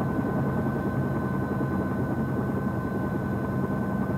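Helicopter hovering low, its engine and rotor making a steady drone.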